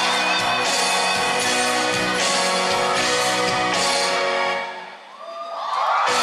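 Live band music with a beat about every 0.8 s, fading out about four and a half seconds in. Near the end, shrill whoops from the audience start up.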